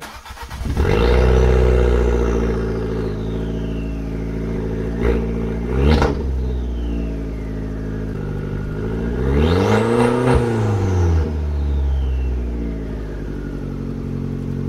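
Jeep Renegade engine running with its muffler removed and the exhaust open ahead of where the muffler was. It cranks briefly, catches and flares up, then settles to a loud idle. It is blipped once about six seconds in, and revved up and back down again around ten seconds in.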